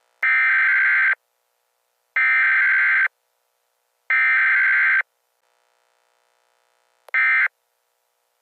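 NOAA Weather Radio SAME digital alert header for a Required Weekly Test, played through a weather radio receiver's speaker: three harsh one-second bursts of data screech about two seconds apart. About seven seconds in comes a shorter burst of the same screech, the start of the end-of-message code.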